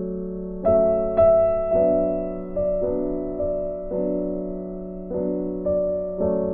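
Background music: soft piano chords struck about every half second to second, each note ringing and fading, over a held low note.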